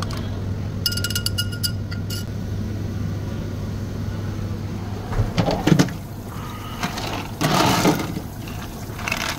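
A metal bar spoon clinks rapidly against a glass as milk is stirred, the glass ringing faintly, for about a second early on. Near the end, a plastic scoop scrapes and rattles through ice cubes in an ice maker's bin, the loudest sound. A steady low hum runs underneath.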